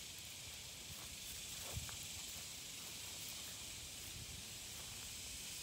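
Faint outdoor ambience: a steady high hiss, with one light knock about two seconds in.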